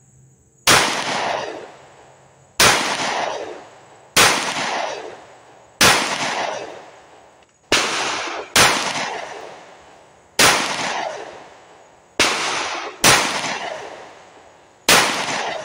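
Smith & Wesson 4513TSW .45 ACP pistol fired about ten times in slow aimed fire, one shot every one to two seconds. Each sharp report trails off over a second or more.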